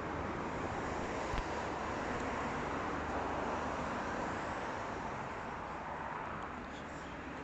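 Steady hum of distant city traffic, with one short knock about a second and a half in.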